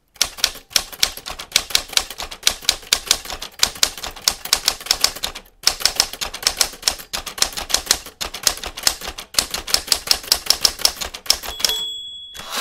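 Typewriter sound effect: quick mechanical keystroke clacks, several a second, with a short break about halfway. A single bell-like ding comes near the end, like a carriage-return bell.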